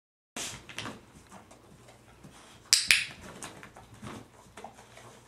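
A handheld training clicker gives a sharp double click, press and release, about three seconds in, marking the dog's touch of the target stick. Fainter clicks and rustling of the dog moving come before and after it.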